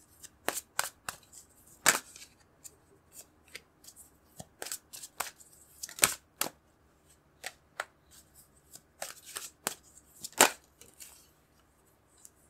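A tarot deck being shuffled and handled by hand: irregular crisp snaps and slaps of cards, the loudest about 2, 6 and 10 seconds in.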